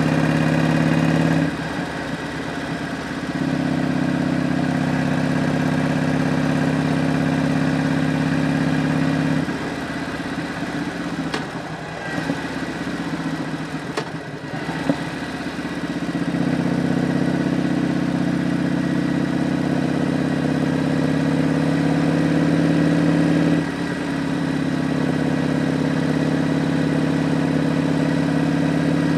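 Harley-Davidson Road Glide's V-twin engine running while riding. The steady engine note falls away briefly near the start, drops for several seconds midway with a couple of faint clicks, then comes back steady.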